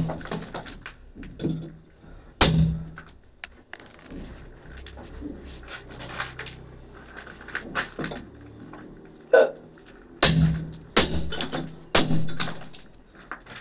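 A hammer striking a steel chisel, chipping into a brick wall to cut a chase. There are a few blows at the start, a pause of several seconds with only faint knocks, then a steady run of about two blows a second near the end.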